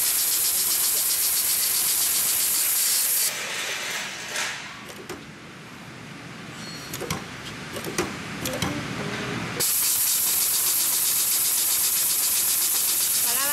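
Heavy-duty long-arm triple-feed sewing machine with a puller-feed roller running at speed through thick canvas, a steady fast clatter. It stops about three seconds in, then fabric is handled with a few clicks and rustles. It starts sewing again about ten seconds in.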